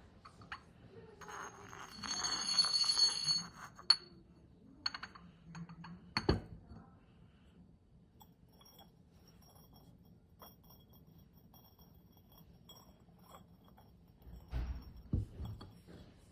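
Porcelain mortars and pestles handled and set down on a table: about two seconds of scraping porcelain with a high ringing tone, then a few sharp clinks, and dull knocks near the end.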